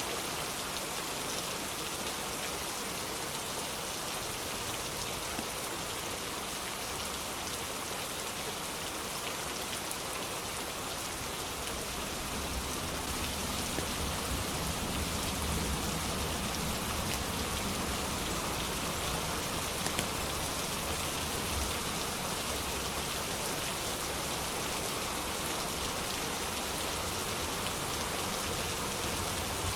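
Steady rainfall, an even hiss of many drops. About twelve seconds in, a low rumble swells up underneath and keeps going.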